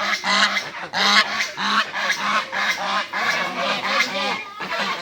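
A flock of swans honking, many short calls repeated rapidly and overlapping, about four or five a second.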